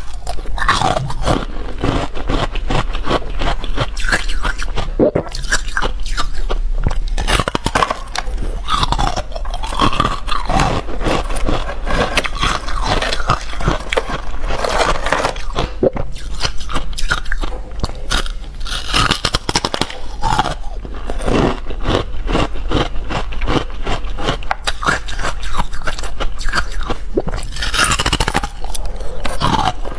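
A person biting and chewing bars of carbonated ice: a continuous run of crunching and crackling, close to the microphone.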